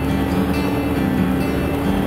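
Background music with sustained notes changing in steps.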